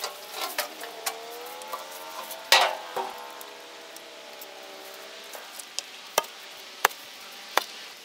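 Old wooden boards knocking and clattering as they are handled, a string of sharp knocks with the loudest about two and a half seconds in. Under them a faint hum wavers in pitch and stops about five seconds in.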